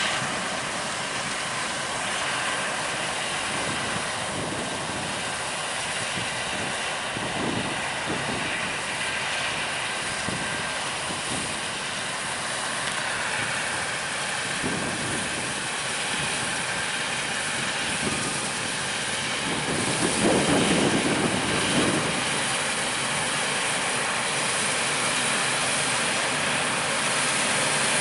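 Combine harvester running as it cuts barley, a steady mechanical din that swells louder for a couple of seconds about twenty seconds in.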